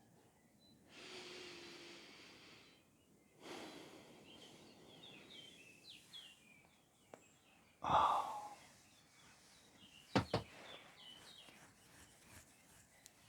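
Quiet outdoor ambience with small birds chirping faintly. A person breathes out slowly a few times, with a louder sigh-like exhale about eight seconds in, and two short clicks follow about two seconds later.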